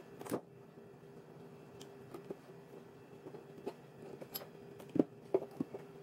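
Hand-stitching a leather scabbard: scattered light clicks and taps of steel needles and needle-nose pliers working thread through the leather, with a sharper cluster of clicks about five seconds in. A faint steady hum runs underneath.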